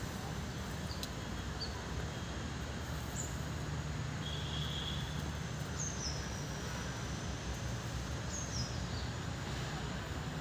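Outdoor ambience: a steady low hum with a few short, high bird chirps, some falling in pitch, scattered through it.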